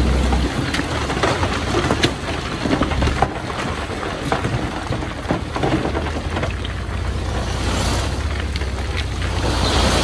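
Komatsu D51PX bulldozer running under load while pushing stone, with a steady low engine drone and scattered short knocks and clanks.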